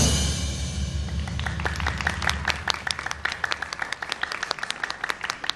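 A drum kit performance ends, its low backing sound fading out within the first second. Then a small crowd claps in scattered, irregular applause.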